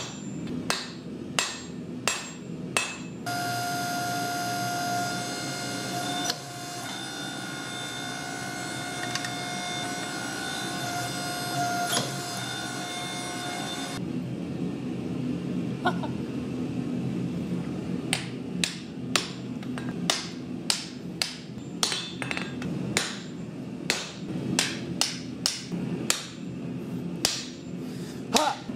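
Hammer blows on hot steel over a hot-cut hardy on the anvil, cutting off the excess end of a forged billet. A quick run of strikes comes at the start, then a steady high ringing chord of several pitches holds for about ten seconds. Blows resume at about two a second from about eighteen seconds in.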